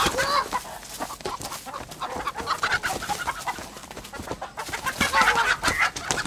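A chicken squawking and clucking in short agitated bursts as it is chased and caught, loudest near the end, over a crackling rustle of dry leaves being trampled.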